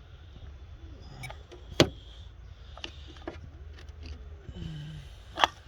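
Sharp clicks and taps from test probes being handled and repositioned at a wiring connector, the loudest about two seconds in and another near the end, over a low steady hum.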